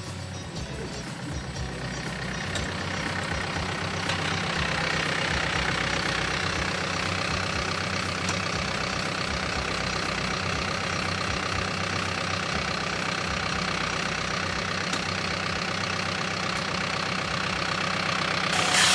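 Compact tractor's engine idling steadily, growing louder over the first few seconds and then holding.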